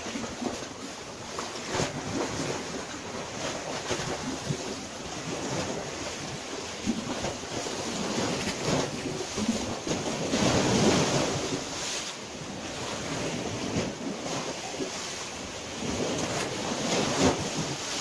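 Small waves of a calm Mediterranean Sea washing onto the beach, with wind rumbling on the microphone. The wash swells loudest around the middle.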